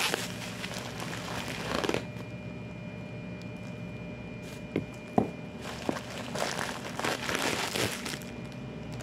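A plastic bag and plastic packaging crinkling as they are rummaged through and handled, in two spells, with a few sharp clicks in the quieter stretch between.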